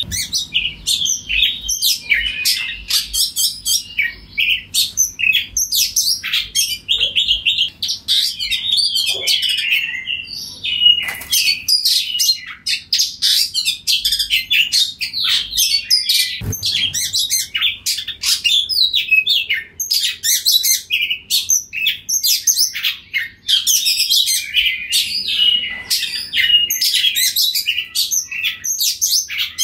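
Oriental magpie-robin singing nonstop: a loud, fast, varied stream of high whistles and chattering notes with only brief pauses.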